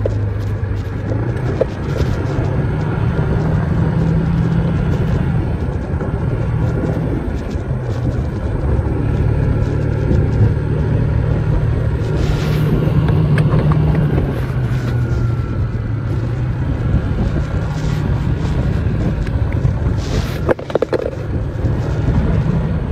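Yamaha SMAX 155 scooter's single-cylinder four-stroke engine running while riding, its pitch rising and falling with the throttle, with a brief dip in loudness near the end.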